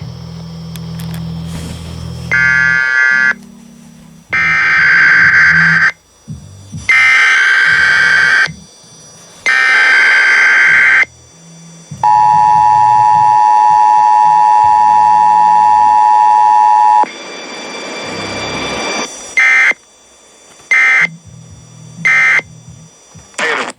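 Emergency Alert System weekly test tones received over AM radio: a series of warbling, screechy one-second data bursts (the digital header), then the steady two-tone attention signal for about five seconds, then three short end-of-message bursts near the end. Faint radio hiss fills the gaps between them.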